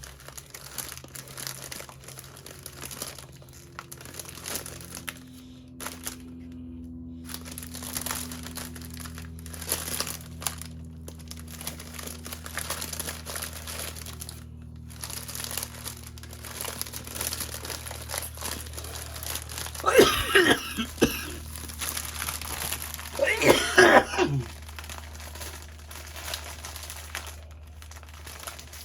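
A person coughing hard twice, in two short fits about 20 and 23 seconds in. In between, small plastic packets of diamond painting drills crinkle as they are handled.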